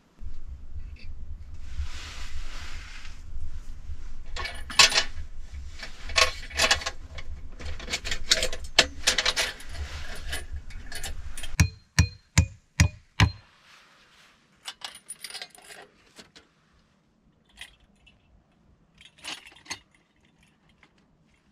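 Small metal objects clinking and being handled, with a low rumble under them, then five sharp knocks in quick succession about halfway through and a few scattered clicks after.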